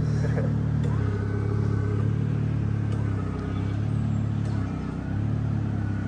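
Off-road car engine running steadily, a low engine hum with no sharp changes.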